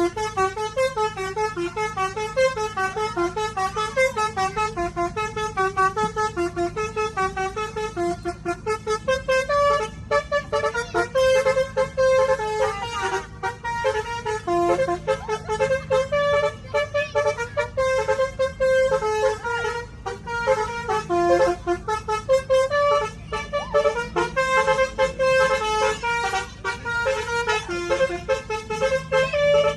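A bus 'telolet' multi-tone horn plays a quick melody of short, repeated pitched notes over a steady low hum.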